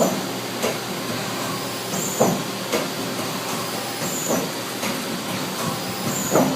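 Turret of a Mazak Slant Turn 40N CNC lathe indexing station to station about every two seconds: each index brings a short hiss, a clunk as the lift-out turret rises, and a second clunk about half a second later as it reseats. Under it runs the steady hum and hiss of the machine.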